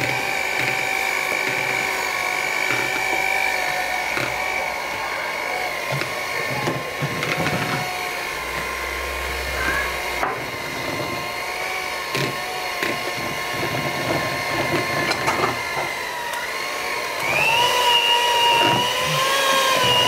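Philips electric mixer's motor running with its beaters churning thick choux-pastry dough, a steady whine with scattered knocks. About three-quarters of the way through the whine steps up in pitch and gets louder.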